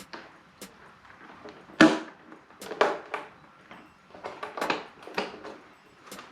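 Irregular knocks and clatter of tools and parts being handled during motorcycle assembly work, with one sharp, louder knock about two seconds in.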